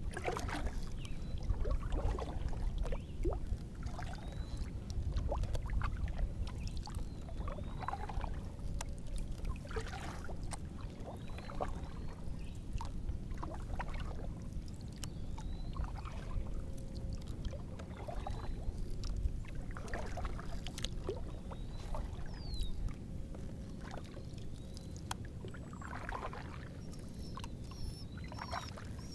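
Paddle strokes swishing through lake water every two to three seconds, over a low steady rumble.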